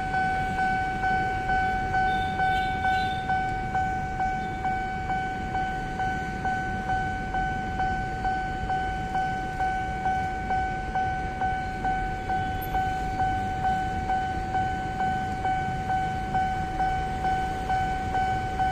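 Electronic level-crossing warning bell ringing a steady two-tone chime over and over, about two strokes a second, over low traffic rumble.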